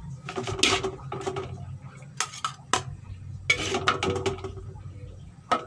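Metal spatula scraping and clinking against a metal wok as fried rice vermicelli is scooped out, in several short bursts of sharp clinks and scrapes.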